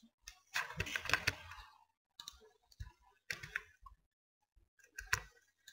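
Clicking of a computer keyboard and mouse: a quick run of clicks about a second in, then a few single clicks spaced out after it.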